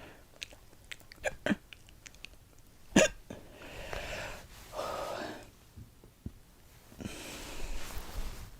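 A girl hiccuping: a few sharp, short hiccups, the loudest about three seconds in.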